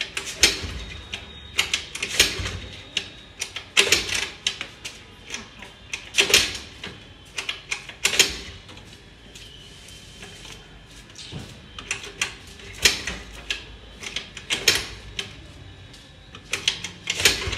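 Scooter kick-start lever kicked over and over, about ten times, each kick a short metallic ratcheting clatter. The engine does not catch: a cold engine that will not start.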